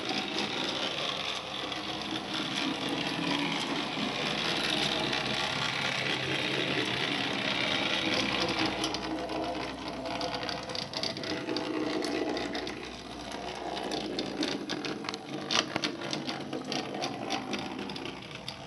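Small electric motor and gearing of a Faller Car System model bus whirring steadily as it drives. About halfway through the whirr eases off and irregular clicks and rattles take over.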